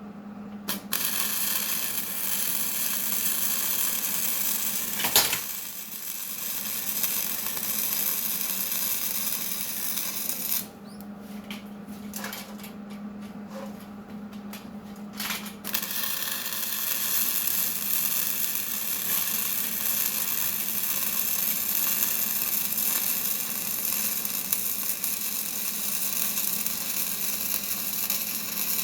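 Electric arc welding: a steady hiss from the arc that stops for about five seconds in the middle, with a few short clicks, then starts again and runs on.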